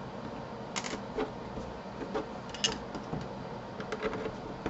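A screwdriver backing screws out of a wall clock's case: a few light, irregular clicks and taps.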